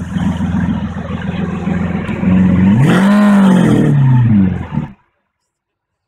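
Lamborghini Aventador LP 700-4's V12 running at a steady idle, then revved once, rising in pitch and falling back over about two seconds. The sound cuts off suddenly about five seconds in.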